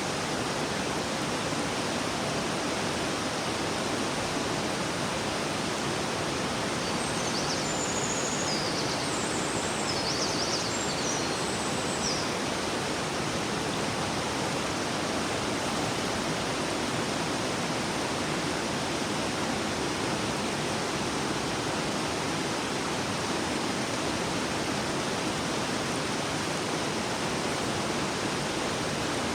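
River water flowing and rushing in a steady, even stream. About a third of the way in, a few brief high chirps sound over it for several seconds.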